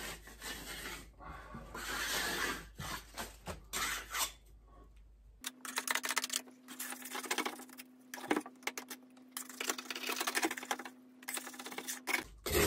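Wallpaper scraper scraping damp backing paper off the wall in many short, rapid strokes, with the paper tearing away. A steady low hum joins about halfway through.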